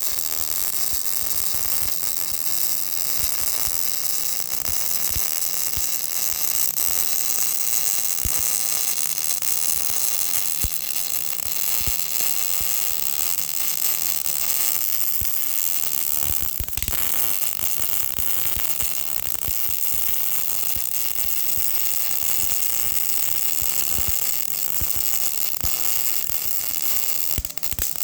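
MIG welder arc crackling and sizzling steadily as a gusset is welded onto a Mustang II lower A-arm pivot point, a dense hiss peppered with quick pops.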